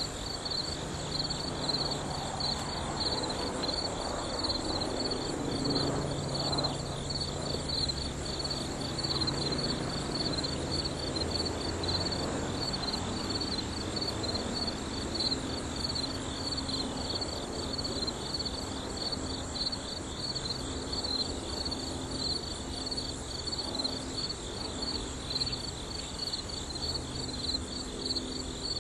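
Honey bees buzzing around an opened hive, their low hum wavering and coming and going. Behind it runs a steady, rapidly pulsing high-pitched insect chirping.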